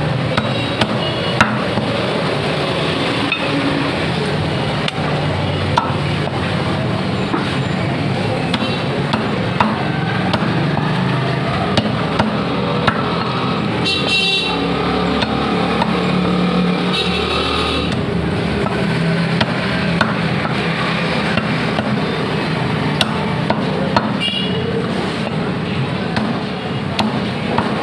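Meat cleaver chopping chicken on a wooden chopping block: sharp knocks every second or two over a steady din of street noise, with a few short high-pitched tones about halfway through and near the end.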